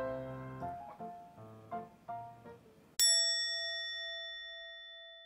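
Soft piano background music, then about three seconds in a single bright bell-like chime sound effect that is struck once and rings out, slowly fading.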